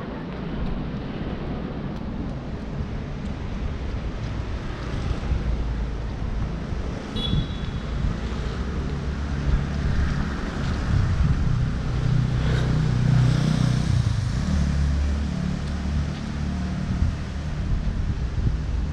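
Rain and wet-road traffic noise on a city street, a steady hiss over a low rumble. The rumble swells for several seconds about halfway through, as when a car goes by on wet asphalt.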